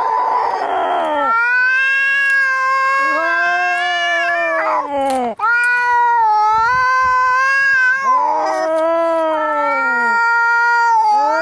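Cats fighting: long, wavering, drawn-out yowls that rise and fall in pitch, one after another with only brief breaks, at times two voices overlapping. A harsh, noisy snarl comes at the start and again about eight seconds in.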